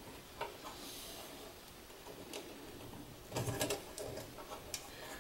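Faint, scattered clicks and light knocks of hands handling wires and a plastic plug-in terminal block on a stepper motor driver, busiest about three and a half seconds in.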